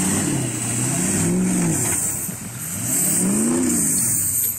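Ford 6.0 Power Stroke turbo-diesel V8 being revved twice, engine pitch rising and falling each time, with the turbocharger's high whistle rising and falling along with it. The engine settles back down at the very end.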